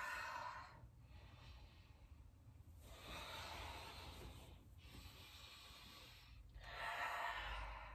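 A woman's faint, slow breathing: three audible breaths, each a soft rush of air, as she moves through a yoga vinyasa into downward dog.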